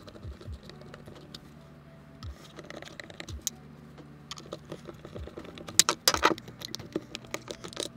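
Light clicks and taps of a hand screwdriver driving small screws into a portable Bluetooth speaker's end caps. About six seconds in, a quick cluster of louder knocks and clatter as the speaker's casing is handled and set down on a wooden desk.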